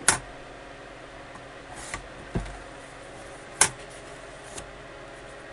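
A few scattered light clicks and taps from cardstock being handled and set on a sliding paper trimmer, with a dull thud a little past two seconds and the sharpest click about three and a half seconds in.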